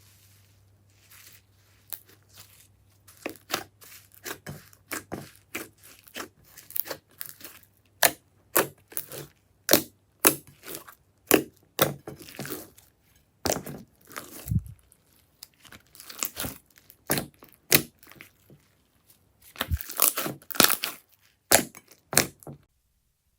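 Slime being handled close to the microphone: a series of short crackling, tearing squelches, roughly two a second, growing louder partway through and stopping shortly before the end.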